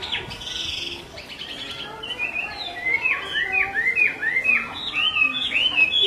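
Caged hwamei (Chinese hwamei laughingthrush) calling: a short harsh rasping note about half a second in, then from about two seconds in a quick run of repeated down-slurred whistles that grows louder toward the end.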